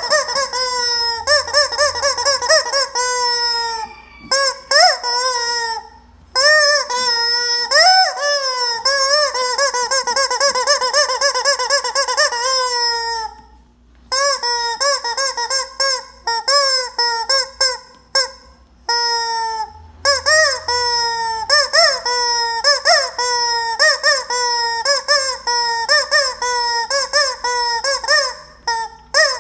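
Squeaky rubber chicken toy squeezed again and again, each squeeze a short, shrill honking squawk that bends up and down in pitch. The squawks come in quick runs with brief pauses between them.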